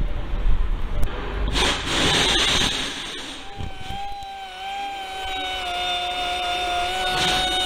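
A small handheld rotary polisher with a pad, working on a plastic car headlight lens to restore its clarity. Handling knocks and a short burst of hiss come first, then about three and a half seconds in the polisher settles into a steady whine that dips slightly in pitch under the pad's pressure.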